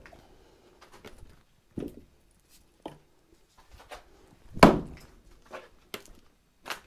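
Splitting axe chopping into a log on a chopping block: one loud, sharp chop about two-thirds of the way through, with a few lighter wooden knocks before and after it.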